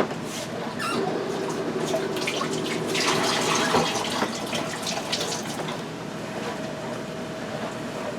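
Chunky hot salsa being ladled and poured into glass pint canning jars, a wet sloshing and pouring with light clinks and scrapes of the ladle against the jars, busiest a few seconds in.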